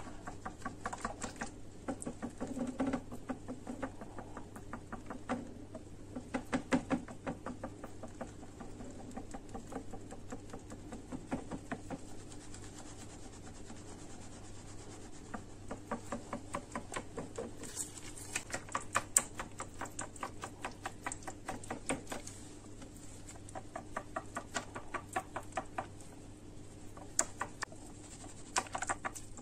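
Silicone-coated balloon whisk beating crêpe batter in a glass bowl: rapid, uneven runs of light clicks and taps as the wires strike the bowl.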